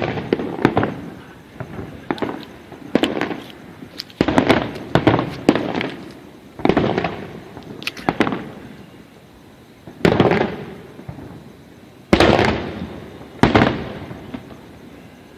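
Aerial fireworks shells bursting in quick succession, sharp booms with long echoing rumbles, thinning toward the end to a few big single bursts about two seconds apart.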